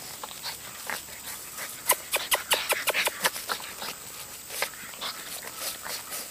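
Boston terrier and English bulldog cross puppies playing and scuffling, with a quick run of about ten short, sharp sounds about two seconds in.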